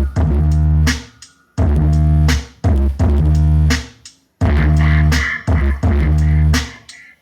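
Bass-heavy electronic dance music played loud through a caixa trio speaker box: long, deep bass notes with sharp hits, broken by short gaps about every three seconds.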